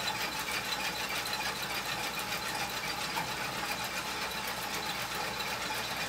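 1967 Kenner Jet Action Easy Wash toy dishwasher running at full speed on faucet water pressure. Its plastic dish rack, loaded with plates and cups, spins with a steady fast clatter while water sprays from its jets and runs into the sink.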